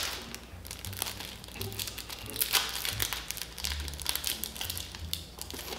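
A temporary tattoo's packet crinkling as it is opened by hand, with many small irregular rustles and crackles.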